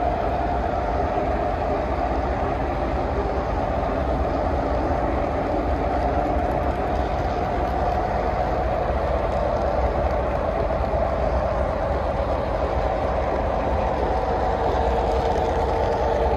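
O-gauge three-rail model freight cars rolling past on metal track: a steady rumble of wheels with a humming whine that drops slightly in pitch near the end.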